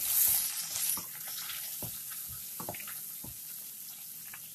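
Sliced garlic and cumin seeds sizzling in hot oil in a stainless steel pan as a metal ladle stirs them, with a few light clicks of the ladle against the pan. The sizzle is loudest in the first second, then settles to a steady hiss.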